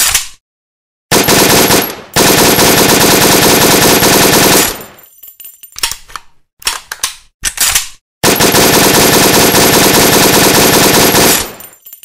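AK-47 firing full-automatic: a single shot, then two long sustained bursts, a few separate short shots, and another long burst that ends with a fading ringing tail.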